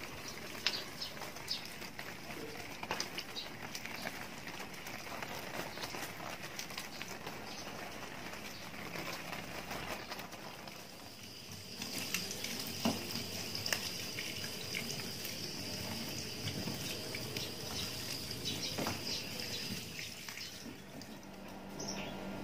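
Water pouring and splashing over broad plant leaves, then a kitchen tap running into a stainless steel sink as plant cuttings are rinsed under the stream.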